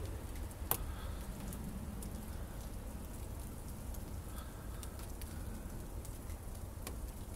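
Wet snow falling and pattering steadily, with scattered light ticks and a low rumble underneath.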